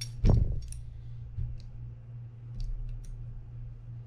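Small clicks and taps of metal reel parts being handled as the brass quadrant plate of a Shimano TLD20 2-speed reel is seated on the side plate. The loudest sound is a dull knock about a third of a second in, followed by a few light clicks, over a steady low hum.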